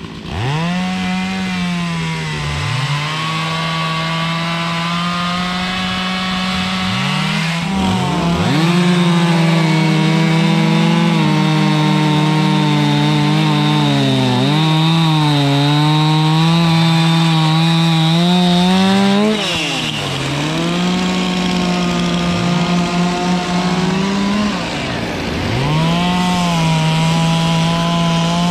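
Two-stroke chainsaw cutting through oak logs. It is held at high revs through long cuts, its pitch sagging a little under load, and drops back off the throttle several times before revving up again.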